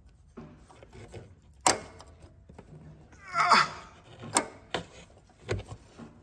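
A hand working a broken AC compressor clutch and pulley makes sharp metal clicks and a short scraping rasp about three and a half seconds in. The clutch is blown to pieces and the compressor is locked up.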